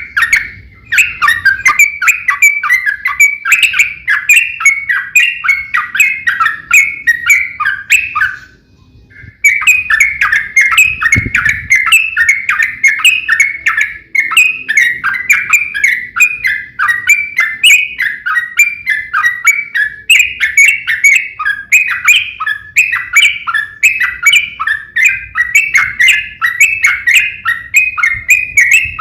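Yellow-vented bulbuls (trucukan) singing a long, fast, unbroken run of short chattering notes, in the bird-keepers' 'fighting' (tarung) style, with one brief pause about eight and a half seconds in.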